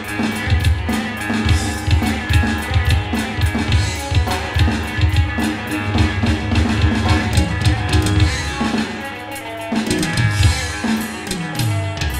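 Live band playing halay dance music: a steady drum-kit beat with electric guitar over it. The drums drop out for about a second around nine seconds in, then come back.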